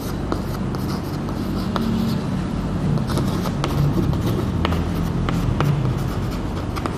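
Chalk tapping and scratching on a blackboard while writing, short sharp ticks scattered through, over a steady low rumble.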